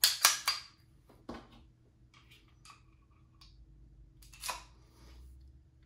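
Metal clicks from a Tisas M1911A1 .45 pistol being handled. A quick run of sharp clicks comes at the start, another click about a second in, light ticks, and one more click about four and a half seconds in.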